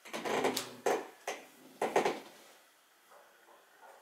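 A handful of sharp knocks and clatters, about five in the first two seconds, then quiet.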